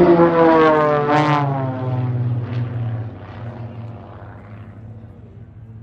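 Propeller-driven radio-controlled model aircraft flying past, the engine loudest in the first second or so and fading away by about three seconds in, leaving a lower steady engine hum.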